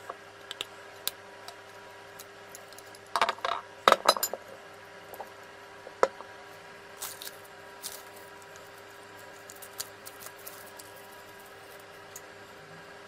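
Small hard parts clinking and tapping against a hard surface: scattered light clicks, with a louder run of clinks about three to four seconds in, over a steady faint hum.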